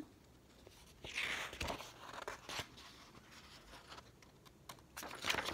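A page of a paperback picture book being turned by hand: a faint rustle of paper about a second in, a few light taps, and another short rustle near the end.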